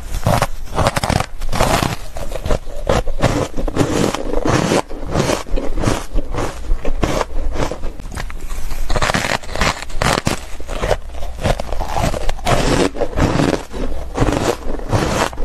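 Close-up crunching of a person biting and chewing a block of ice coated in matcha powder: a dense run of sharp crunches and crackles with no pause.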